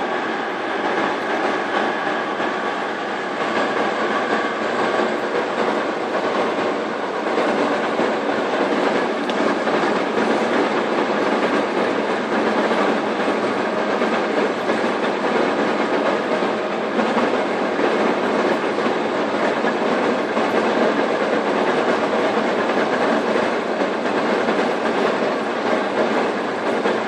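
STANKO 1M63 heavy engine lathe running, its headstock gearbox and drive giving a steady, dense mechanical rattle.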